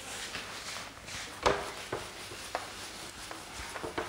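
Handling sounds: a few light knocks and taps, the loudest about one and a half seconds in, over soft rustling. Near the end a cloth starts wiping across a whiteboard.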